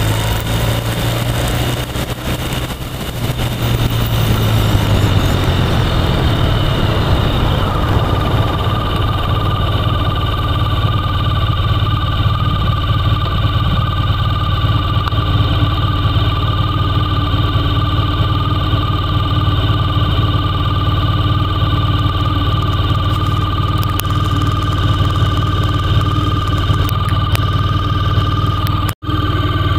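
Motorcycle engine with wind rush while the bike is moving for the first several seconds, then the bike comes to a stop and the engine idles steadily. The sound cuts out for an instant near the end.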